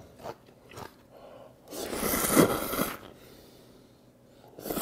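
A person blowing to cool hot ramen noodles held up on chopsticks, in one long breath a couple of seconds in, then a short slurp of the noodles near the end.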